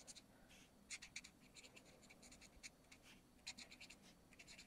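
Faint scratching of an alcohol marker's bullet tip on card stock as a stamped image is colored in: short strokes in quick succession.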